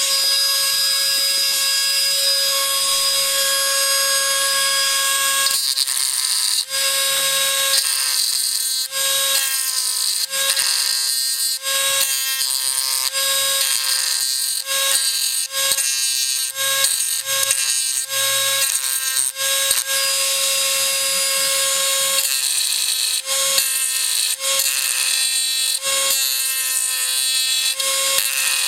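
Dremel rotary tool running at a steady high whine, with dips and short breaks in the whine over and over from about six seconds in.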